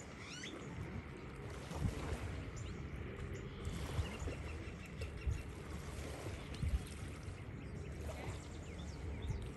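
Distant jet ski engine droning across open water under an uneven low rumble of wind on the microphone, with a few short bird chirps, one quick series about four seconds in.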